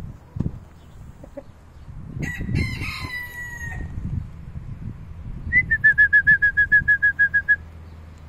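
An Ancona rooster crows once, for under two seconds, ending on a falling note. A few seconds later comes the loudest sound: a fast run of about fifteen short, high notes at one pitch, about seven a second.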